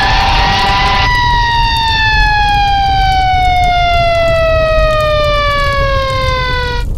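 Siren wailing: its pitch rises briefly, then falls in one long slow glide from about a second in, and cuts off abruptly near the end.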